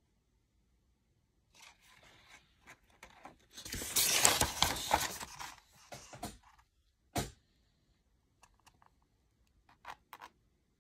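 Paper page of a planner being turned by hand, rustling for a few seconds. A short sharp tap follows about seven seconds in, and a few faint ticks come near the end.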